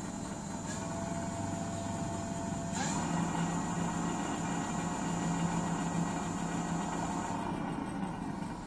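Electric bike motor running on a repaired controller, a steady whine that steps up in pitch twice, each step marked by a click, about one and three seconds in. A thin high whine drops out near the end.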